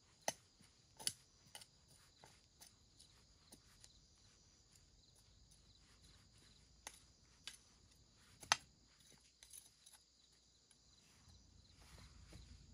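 Faint, steady insect chirring, broken by a scattering of sharp clicks and taps, the loudest about eight and a half seconds in.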